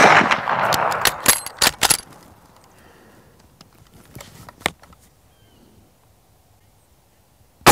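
Fading report of an 11mm Mauser Model 71/84 bolt-action rifle firing a black-powder cartridge, followed about a second in by sharp metallic clicks of the bolt being worked and a few lighter clicks around four seconds. A second shot goes off at the very end.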